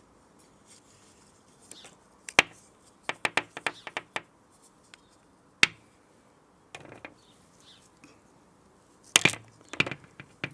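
Hard plastic and metal parts of a pressure washer trigger gun clicking and knocking as they are handled and fitted together: one sharp click, then a quick run of about six small clicks, more single clicks, and a louder pair of knocks near the end.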